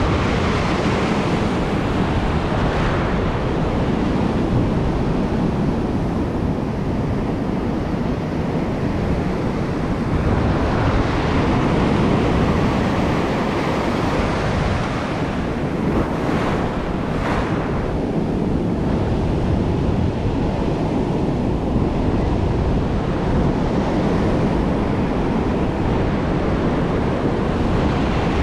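Ocean surf breaking on a sandy beach, with foam washing up and back over the sand: a steady rush that swells each time a wave breaks.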